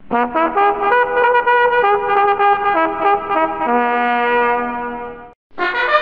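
Musical multi-tone bus horn playing its repeating "tu tututu" melody in a slowed-down, lower-pitched version, with a brass-like tone. It stops about five and a half seconds in, and a brighter, higher version starts just after.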